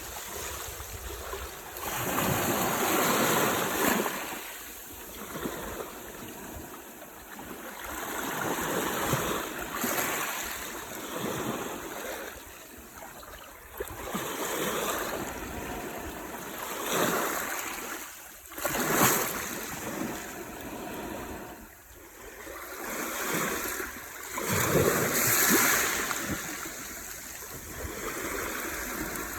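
Sea waves breaking and washing up the shore, the surf swelling and falling away every few seconds.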